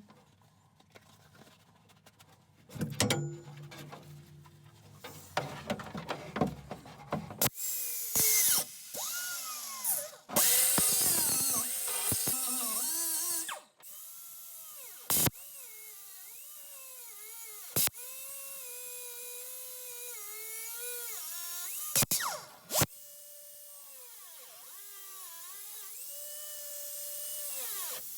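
A handheld power tool working metal: a stretch of loud grinding hiss, then its motor whining and repeatedly dipping and rising in pitch as it is loaded and eased off, with a few sharp clicks.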